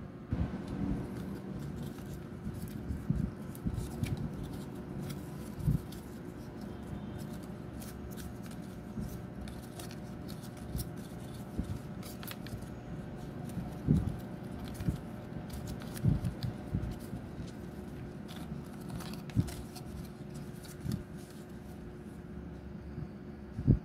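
Stiff printed cardstock of a paper finger puppet being folded and handled: scattered crinkles, taps and creasing clicks over a faint steady hum.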